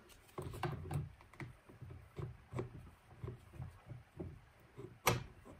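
A combat robot's HDPE wheel with a bike tyre being worked by gloved hands onto its shoulder bolt: soft repeated rubbing and handling taps, and one sharp click about five seconds in.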